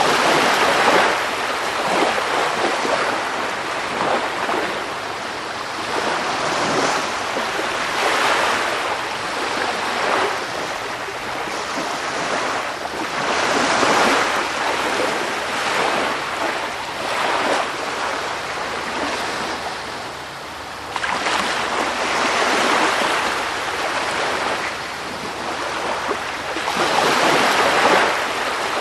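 Sea waves washing onto a shore in a continuous rush, swelling and ebbing every few seconds.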